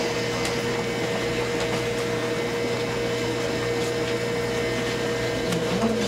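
Steady droning hum and hiss with a constant mid-pitched tone, unchanging throughout.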